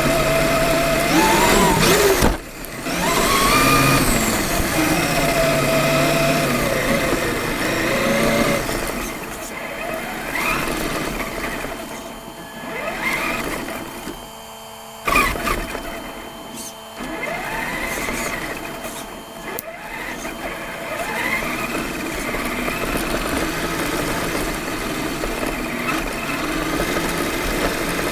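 Electric motor and gear whine of a Traxxas E-Maxx RC monster truck, picked up by the truck's own onboard camera, rising and falling in pitch as the throttle is worked while it drives over grass and dirt. A sharp knock is heard about halfway through.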